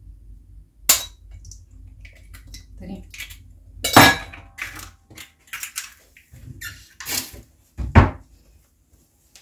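A knife tapping an eggshell open over a stainless steel bowl, followed by sharp clatters and knocks of kitchenware. The loudest clatter comes about four seconds in, and a heavy knock near the end.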